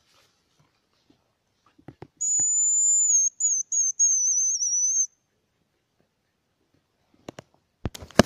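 A high, thin hazel grouse whistle call, first held steady and then breaking into a short wavering trill, lasting about three seconds. Near the end comes a sharp crack, the shot that brings the grouse down.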